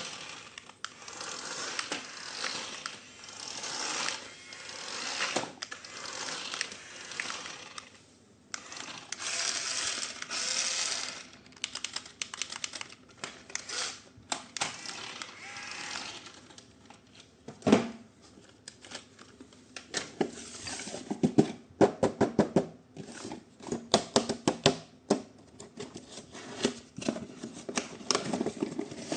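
Plastic packaging rustling and crinkling in long swells, then a string of sharp clicks and knocks as the plastic toy parts are handled, with one louder knock in the middle.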